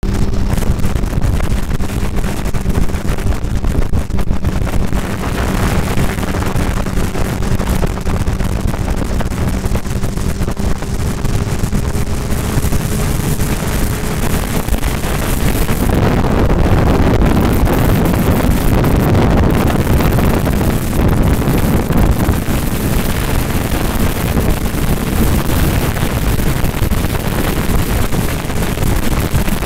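Kawasaki ZX-10R inline-four engine running steadily at highway cruising speed, its hum rising slightly in pitch through the first half. Heavy wind rush over the microphone grows stronger about halfway through.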